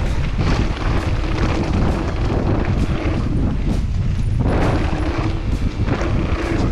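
Wind buffeting an action-camera microphone on a mountain bike ridden fast down a dirt jump line, a loud, steady rumble with frequent knocks from the bike over the ground.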